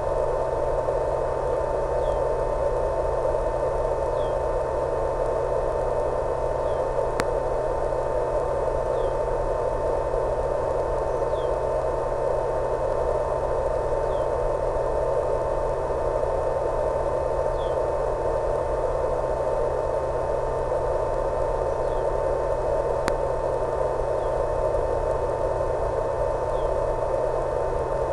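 Steady radio static from an analog FPV video link's audio channel: an even hiss with a constant hum tone, faint short chirps every second or two, and two faint clicks.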